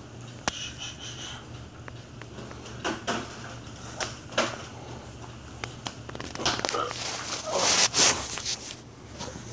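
Phone handling noise: scattered small clicks and knocks, then a loud rubbing and scraping burst near the end as the phone is moved.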